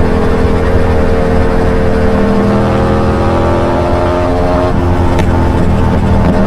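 Yamaha MT-07's 689 cc parallel-twin engine running through an Arrow aftermarket exhaust while riding. The engine note climbs slowly in pitch, drops suddenly about two-thirds of the way in, then holds steady.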